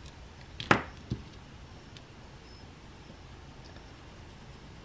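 Pencil handling as the artist swaps to a mechanical pencil: a sharp tap a little under a second in and a fainter one just after, then faint room hiss.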